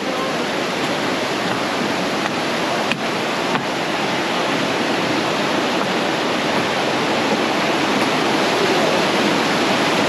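Mountain stream rushing and cascading over boulders: a steady, loud rush of white water. A single faint click comes about three seconds in.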